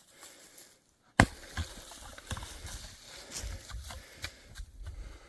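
A single sharp, loud knock about a second in, followed by steady rustling and scattered lighter knocks and cracks.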